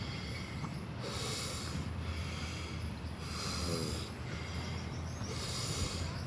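Alternate-nostril breathing in anulom vilom pranayama: three long, forceful breaths drawn in and pushed out through one nostril at a time, about two seconds apart. A steady low hum runs underneath.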